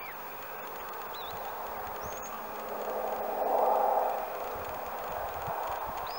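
Open-field ambience: a steady rushing noise that swells for about a second midway, with a few short, high bird chirps scattered through it.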